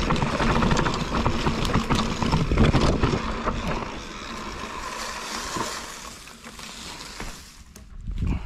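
Mountain bike descending a dry dirt trail: wind rushing over the camera microphone, tyres rolling on dirt and gravel, and a steady stream of clicks and rattles from the bike. It grows quieter after about four seconds, and there is a thump near the end.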